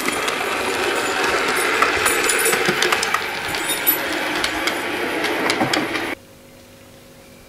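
Model railway train running along the track: the tank locomotive's small electric motor whirs and the wheels click over the rail, a dense busy noise with scattered clicks. It cuts off abruptly about six seconds in, leaving only a faint steady hum.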